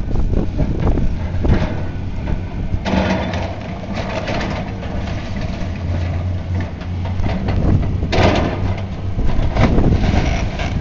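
Heavy demolition machine's engine running steadily while it tears into the building, with crunching and clattering of debris that swells about three seconds in and again near eight seconds.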